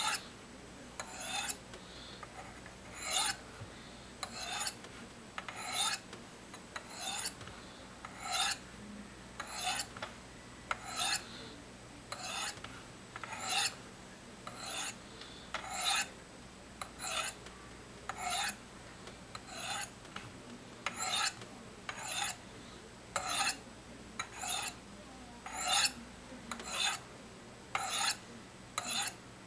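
Knife blade drawn down the flat faces of a Spyderco Sharpmaker's medium ceramic rods, one short scraping stroke about every second and a little quicker near the end.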